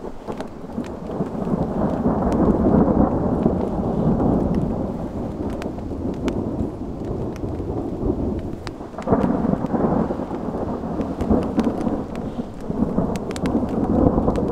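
Thunderstorm: thunder rumbling in long rolling swells, louder about two to four seconds in, again about nine seconds in and near the end. Rain falls throughout with a scatter of sharp raindrop ticks.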